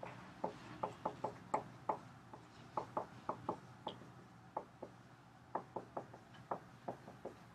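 Dry-erase marker tapping and scratching on a whiteboard as words are written: a quick run of small, sharp taps, pausing briefly near the middle before starting again.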